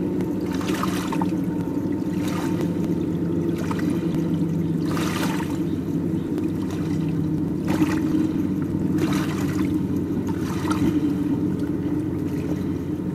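Underwater sound picked up by a diver's camera: a steady low hum with short hissing, bubbling rushes at irregular gaps of a second or two.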